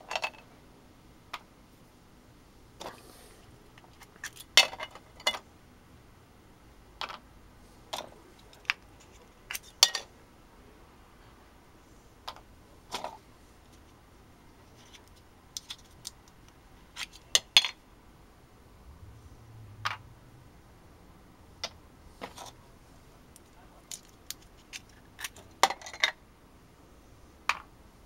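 Irregular sharp clicks and clinks of small resin-and-metal-shaving orgonite pieces being picked up, knocked together and set down on a copper sheet, with quiet between them.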